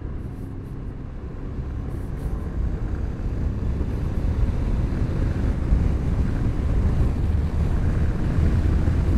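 Motorcycle on the move: wind noise on the rider's microphone over engine and road rumble, growing louder over the first few seconds as speed builds.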